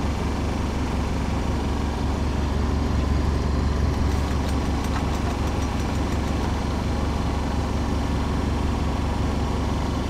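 Sailboat's inboard diesel engine running at a steady, even drone while motoring. A few faint light ticks come near the middle.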